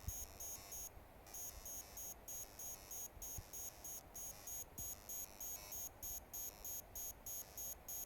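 An LED candle's flicker chip played through a small 8-ohm speaker: a thin, high-pitched electronic buzz that switches on and off in an irregular stutter, a few pulses a second, with a short gap about a second in. It is the chip's stored flicker pattern made audible, the same signal that drives the candle's LED flicker.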